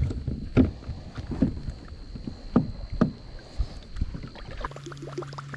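Irregular knocks and thumps from a small fishing boat, about seven over four seconds, like gear or paddle bumping the hull. Near the end they give way suddenly to a steady low hum.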